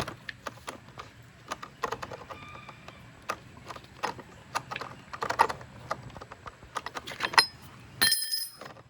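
Irregular metallic clicks and taps of a wrench, nut and washer on the axle of a robotic mower's drive wheel as the wheel is fastened back on. Near the end comes a short ringing metal clink.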